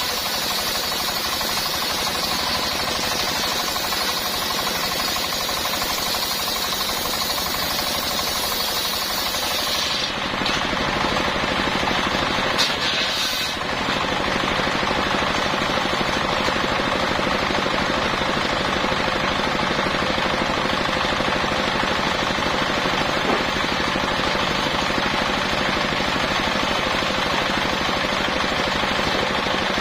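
Circular saw cutting a coconut palm trunk into beams: a loud, steady run with a rapid rattle, and a high hiss that drops away about ten seconds in.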